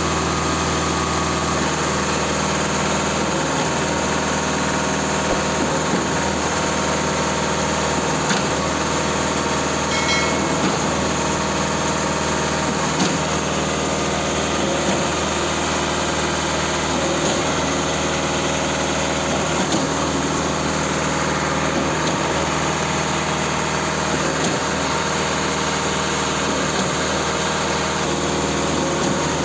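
Concrete pump machine's engine running steadily, with a few faint knocks now and then.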